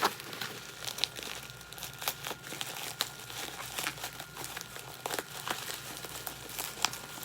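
Bubble wrap and plastic packaging crinkling and rustling as a parcel is cut open and unwrapped by hand, with irregular sharp crackles throughout.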